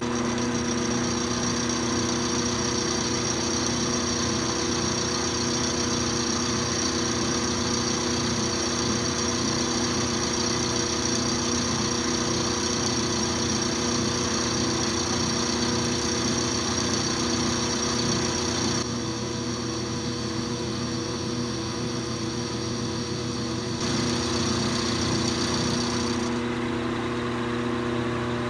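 Milling machine running with a 3/8 in end mill cutting a V-groove into an aluminium block: a steady motor hum with a high whine over it. The sound eases for a few seconds about two-thirds through, and the high whine drops out near the end.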